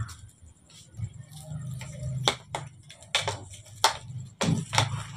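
A series of sharp clicks and knocks from a bamboo climbing frame as young monkeys climb and swing on its poles and rope, coming thickest in the second half, over a low steady hum.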